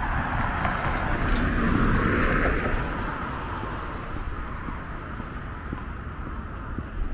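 A car passing by on the street: the tyre and engine noise swells, is loudest about two seconds in, then fades away.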